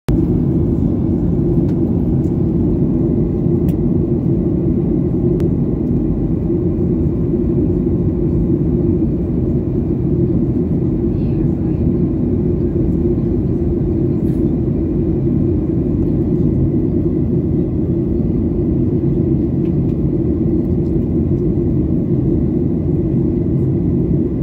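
Steady, loud rumble of a Boeing 737-800's CFM56 turbofan engines and the airflow, heard from inside the passenger cabin on descent, with a faint steady high tone above it.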